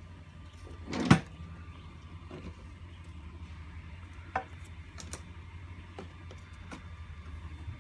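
Leafy vegetable plants being cut and handled in a hydroponic tray: one sharp snap about a second in, then a few lighter clicks and knocks, over a steady low hum.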